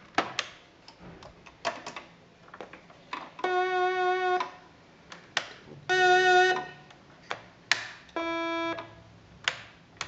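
Small Russian electronic keyboard sounding three single held notes, each about a second long, the first two with a bright tone full of overtones and the third smoother. Sharp plastic clicks from its keys and selector tab switches come in between.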